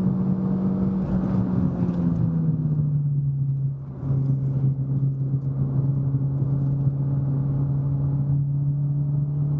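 Renault Sandero RS's 2.0-litre four-cylinder engine pulling uphill, most likely in fourth gear. The engine note eases down in pitch over the first few seconds and briefly drops in level just before four seconds in, then holds steady.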